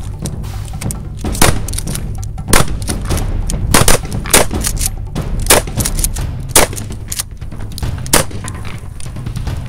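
Pump-action shotguns firing, about seven sharp blasts at irregular intervals from more than one gun, each followed by a short echo.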